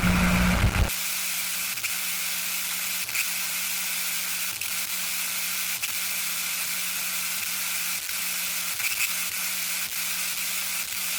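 Radio static: a steady hiss with faint scattered crackles and a low hum. A louder burst of noise cuts off about a second in.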